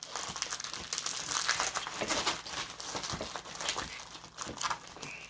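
Plastic packaging crinkling and rustling as it is handled, in many quick irregular crackles.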